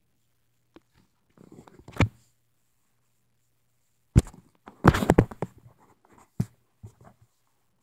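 Knocks, taps and scuffs of a pet bumping and pawing right against the camera. There are small taps leading to a sharp knock about two seconds in, then a louder cluster of knocks around five seconds, with a few lighter taps after.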